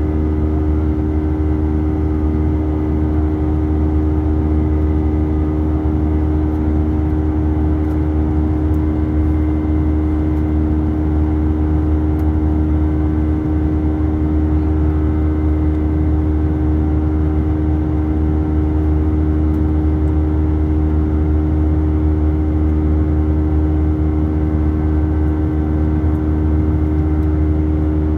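Steady jet engine drone of an Airbus A319 airliner heard inside the passenger cabin: a strong low hum with several steady tones above it that do not change.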